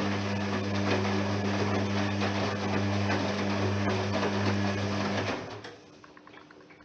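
Privileg 3020 washing machine running with a steady mains hum and rushing noise, from its pump or water valve, which cuts off abruptly about five seconds in. A few faint clicks follow.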